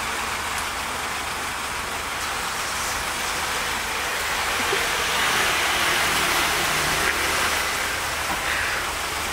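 City road traffic: a steady hiss of passing cars, swelling a little about halfway through as a vehicle goes by.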